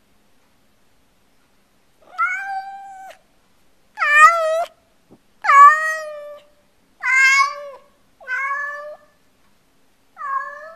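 A domestic cat meowing loudly and repeatedly, six long drawn-out calls about one every one and a half seconds, starting about two seconds in. It is calling out for its owner, who has just left it alone in the house.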